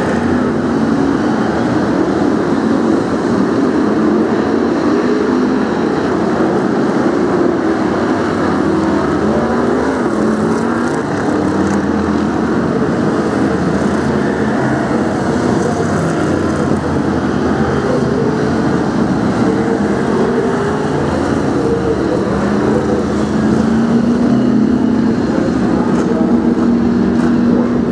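Several BriSCA F1 stock cars' V8 engines running hard together, many overlapping revs rising and falling as the pack laps the oval.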